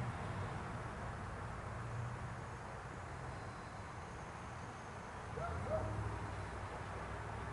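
Quiet outdoor night ambience: a faint low rumble that swells and fades, with a brief faint call about five and a half seconds in.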